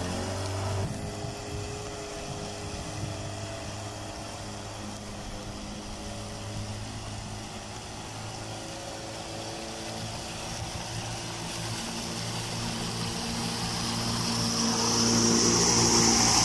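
Mercury 8 hp outboard motor running steadily under way on a small boat. It grows louder over the last few seconds as a hiss of water or wind comes in.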